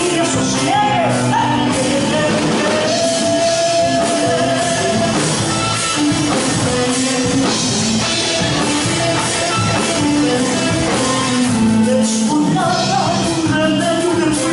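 A popular song sung with a backing band, the singing and instruments going on throughout.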